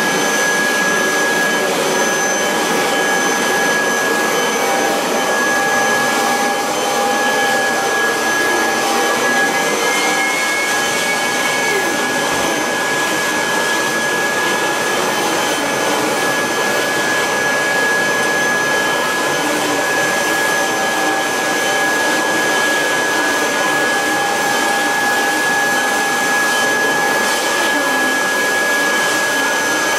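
1986 Kirby Heritage 2 vacuum cleaner running steadily while vacuuming: a constant rush of air with a steady high-pitched motor whine.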